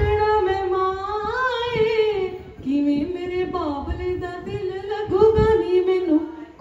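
A female voice singing a slow Punjabi song of a daughter's farewell to her father, drawing out long held notes with ornamented bends and turns.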